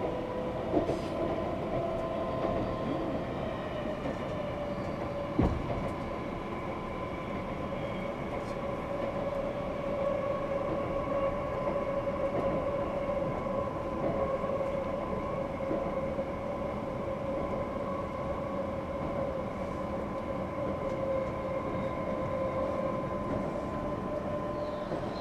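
Electric train heard from inside the car while running at speed: a steady motor whine over the rumble of the wheels on the rails, with one sharp knock about five seconds in.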